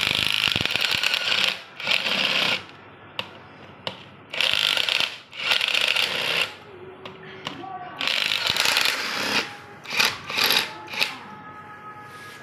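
About six irregular bursts of harsh, hissing mechanical noise, each lasting roughly half a second to a second and a half, over faint background music.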